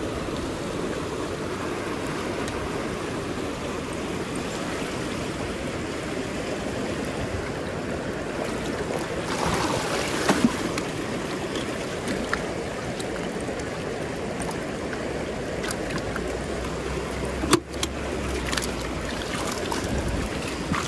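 A river's flowing water rushing steadily, with one sharp knock about two-thirds of the way through.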